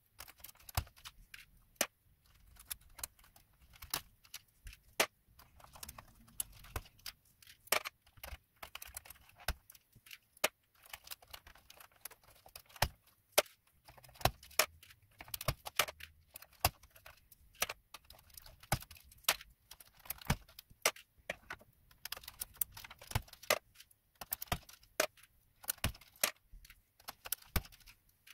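Plastic keycaps being prised off a Commodore 64C keyboard one after another with a small tool: irregular sharp plastic clicks and clatter, about one or two a second.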